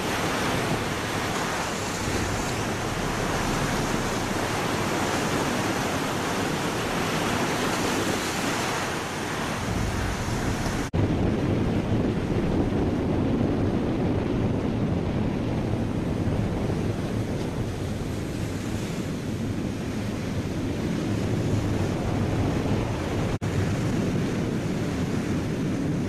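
Steady rush of sea water churned up at a ship's bow, with wind buffeting the microphone. About eleven seconds in it breaks off for an instant and goes on duller and deeper.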